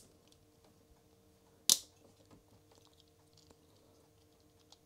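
One sharp plastic click about two seconds in: the top strain-relief clip of a blue IDC ribbon-cable connector snapping shut over the folded-back cable. Faint handling ticks of the plastic parts come before and after it.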